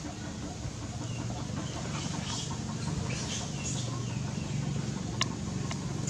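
Chickens clucking, a steady low murmur of clucks, with scattered faint higher calls and one sharp click about five seconds in.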